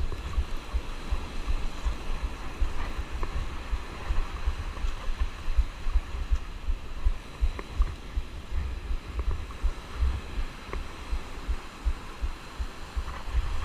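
Wind buffeting the microphone in uneven low thumps, over a steady hiss of breaking surf.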